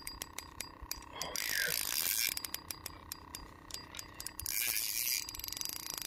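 Spinning reel's drag clicking in two long runs of rapid clicks as a hooked lake trout pulls line off against it.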